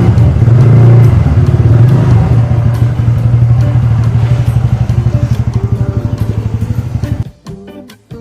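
Motor scooter running on the road, a loud steady low engine hum with fast pulsing. It cuts off about seven seconds in, and guitar music starts.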